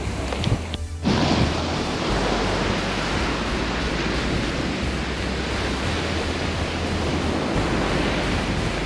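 Ocean surf and wind on a beach, a steady rush of noise with a brief break about a second in.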